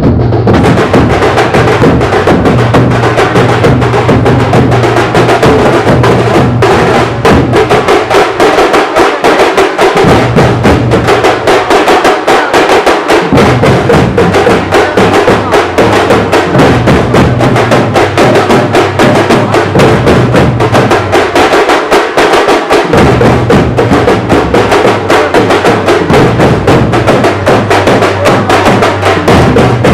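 A group of tamte frame drums played in a fast, dense rhythm. The drums are beaten with sticks and the sound is very loud.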